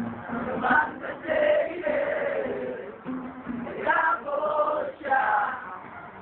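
Several men singing together informally, with long held, wavering notes broken by short pauses.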